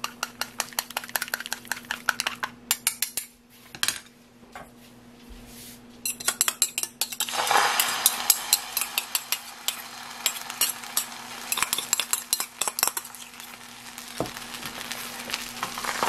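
Beaten egg yolk being stirred with a metal spoon against a bowl in rapid clinks, then poured into a hot nonstick frying pan about seven seconds in, where it starts to sizzle while the spoon scrapes and spreads it into a thin sheet.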